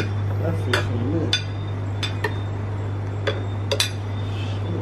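Metal cutlery and serving utensils clinking against plates and serving dishes, a handful of separate sharp clinks, over a steady low hum.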